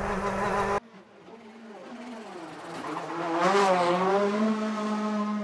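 Volkswagen Polo R WRC rally car engine. A steady engine note cuts off abruptly just under a second in, then the car's engine grows from faint to loud as it approaches and passes, its pitch wavering at the loudest point.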